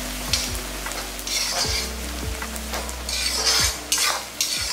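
Sliced onions frying in ghee and oil in a kadai, sizzling steadily. A spoon stirring them gives two louder bursts of scraping, about a second and a half in and again near three and a half seconds. Soft background music runs underneath.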